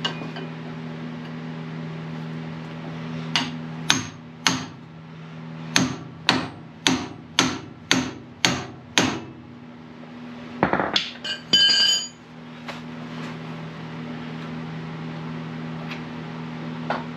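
Hammer blows on the steel steering parts of a Jeep Wrangler JK: a few single strikes, then a run of about seven blows at roughly two a second. Metal clinks and rings about eleven seconds in, all over a steady low hum.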